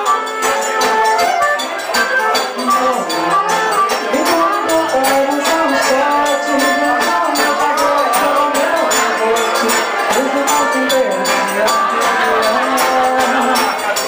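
Live forró band playing: an accordion melody over strummed acoustic guitar, with zabumba drum and jingling hand percussion keeping a steady, driving beat.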